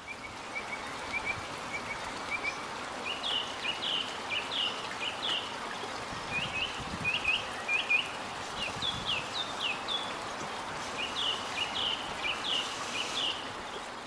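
Small birds chirping in clusters of quick, short calls over a steady background hiss; the sound fades in at the start and fades out at the end.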